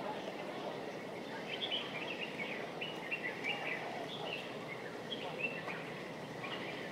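Small birds chirping in short scattered phrases over a steady wash of outdoor background noise.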